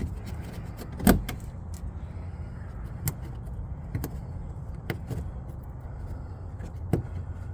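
A handful of sharp clicks and knocks from small parts being handled and fitted back onto the car, the loudest about a second in, over a steady low hum.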